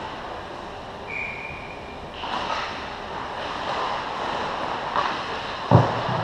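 Ice hockey rink ambience during play: a steady wash of distant skating, stick noise and voices echoing in the arena. A short thin whistle-like tone sounds about a second in, and a loud thud comes near the end.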